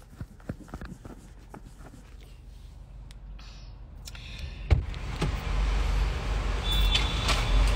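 Inside a car: faint clicks, then a knock a little past halfway as the car door is opened, and a steady hiss of outside traffic noise rising after it.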